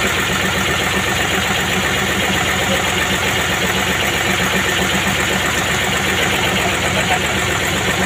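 An engine idling steadily, an even low drone.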